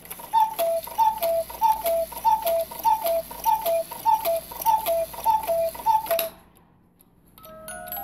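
The bellows-fed wooden pipes of an antique German cuckoo clock call 'cu-ckoo' ten times to count the hour, a high note then a lower one, about every 0.6 s, each with clicks from the movement. After a short pause near the end, the clock's Swiss music-box movement starts playing a melody.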